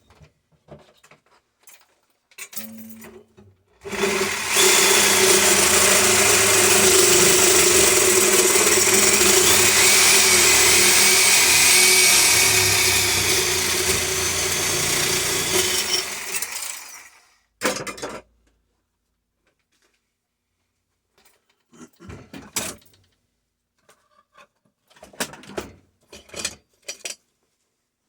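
A handheld power tool runs for about thirteen seconds, cutting open the steel shell of a sealed refrigeration compressor, then winds down. Scattered short metallic knocks follow as the compressor is handled.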